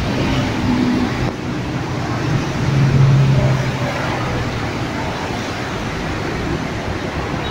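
Road traffic passing: a steady wash of car and motorbike noise, with one vehicle's engine hum swelling about three seconds in.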